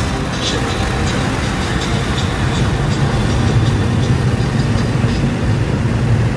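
Steady road and engine noise of a car cruising at highway speed, heard inside the cabin as a low, even rumble.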